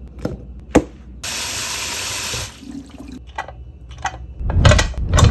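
A kitchen tap runs into the sink for about a second, among knocks and clanks of a heavy cast-iron bungeoppang (fish-shaped waffle) pan being handled in the sink. The loudest heavy knocks come near the end.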